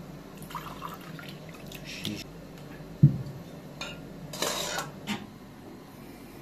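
Dishes, pots and utensils being handled, with scattered clinks and knocks. A dull thump about three seconds in is the loudest sound, and a brief scraping noise follows about a second later.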